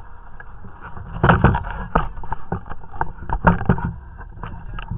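A quick, irregular run of knocks and scrapes from about a second in until near the end, loudest in two clusters, over a steady low wind rumble.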